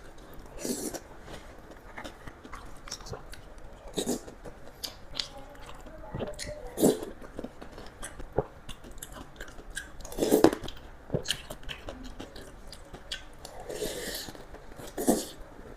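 Close-miked eating of chicken noodles: irregular wet chewing, lip smacks and bites, with a few louder smacks and a longer slurp-like hiss near the end.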